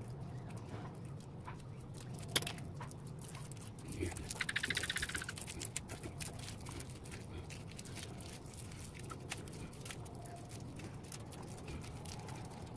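Handling noise from taking a device apart: scattered small clicks, one sharp click about two seconds in, and a short rapid rattling like a ratchet a little after, over a steady low hum.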